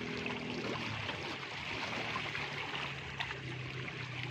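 Small waves washing and trickling against the seawall's boulders, under a low steady hum of a boat engine.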